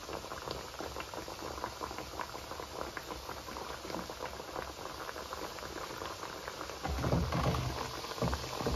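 Sweet dough tikiyan frying in hot ghee and oil in an aluminium karahi: a steady crackling sizzle of bubbling fat. A louder low rumble comes in about seven seconds in.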